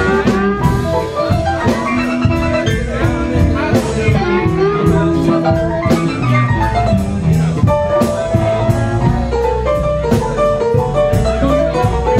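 Live blues band playing an instrumental passage on electric keyboard, electric upright bass, drum kit and electric guitar.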